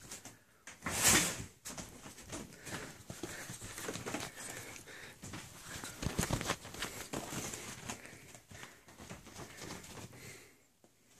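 A ferret scampering and pouncing across a bed, its feet and body scuffling and tapping on the bedding while the covers rustle, with a loud rustle about a second in. The scuffling dies down near the end.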